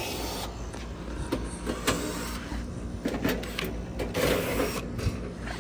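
Small cordless driver whirring in short bursts as it backs the screws out of an air-conditioning condenser's access panel, with clicks of handling over a steady low hum.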